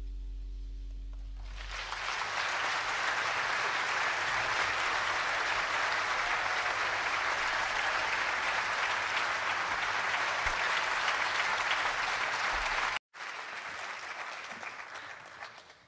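The last chord of the song rings out and fades, then an audience applauds steadily. The applause cuts out suddenly for an instant about 13 seconds in, then comes back quieter and dies away near the end.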